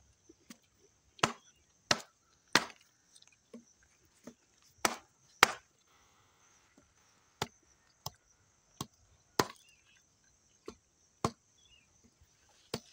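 A curved sickle blade chopping into the fibrous husk of a palmyra palm fruit. The chops are sharp and irregular, about one or two a second, some much louder than others.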